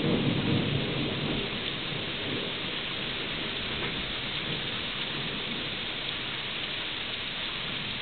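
Steady rain falling, with a low rumble of thunder right at the start that dies away over the first two seconds.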